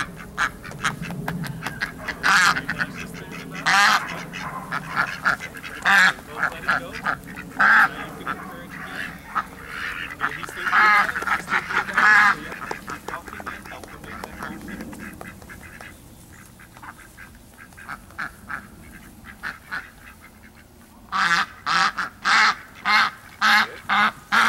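A flock of Indian Runner ducks quacking on and off, with a quick run of about eight loud quacks near the end.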